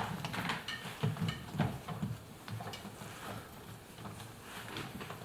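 Faint scattered clicks, taps and light scrapes of hands working the metal retaining spring around the rubber door seal of an Indesit washing machine, busier in the first two seconds.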